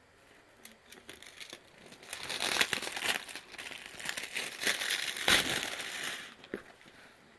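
Packaging being handled and opened: a run of rustling and sharp crackles that builds about two seconds in and dies away near the end.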